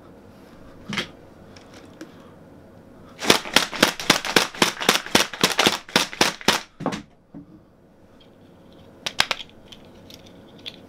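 A fast run of sharp slapping hits, about five a second for three and a half seconds, with a single hit about a second in and a couple more near the end.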